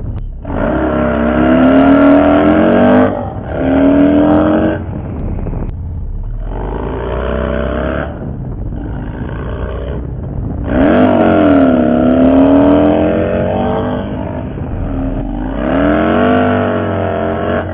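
2004 Harley-Davidson Dyna's Twin Cam 88 V-twin with a 2-into-1 exhaust, heard while riding on a freshly flashed basic tune. It revs up in several pulls with brief dips between them, like gear shifts. It drops off the throttle and pulls again, with the pitch sweeping down and back up twice near the end.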